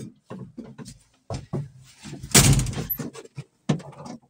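Knocks, clunks and clicks of someone climbing into a Ford 7700 tractor cab and working its door and fittings, with a louder, longer rattle about two seconds in.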